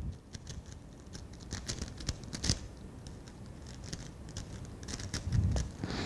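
A Rubik's cube being turned quickly by hand as it is solved: rapid, uneven clicking and clacking of its plastic layers, several clicks a second.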